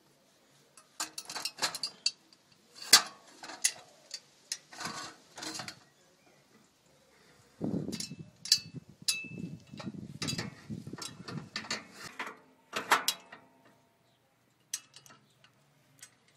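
Steel frame parts of a collapsible cement mixer being handled: a run of sharp metal clanks and clicks, then a rough scraping rumble for several seconds as a square steel drawbar slides through its sleeve, ending in a single knock and a few light ticks of pins and chain.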